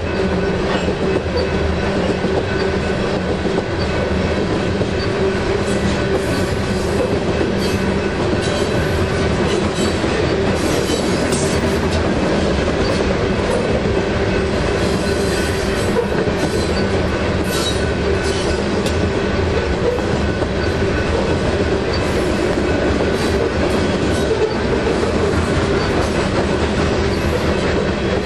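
Freight train of grain hopper cars rolling past at close range: a continuous loud rumble of the cars, with wheels clacking over rail joints and some wheel squeal.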